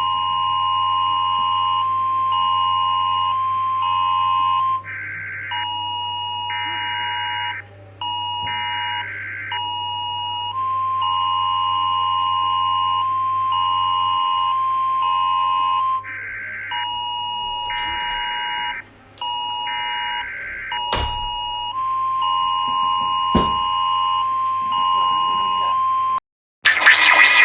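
Emergency Alert System-style alarm: steady electronic two-tone beeping that switches on and off in an irregular pattern, broken up by short buzzing data-like bursts, with two sharp clicks in the last third. It cuts off about a second before the end, and a loud, harsh noisy sound starts right after.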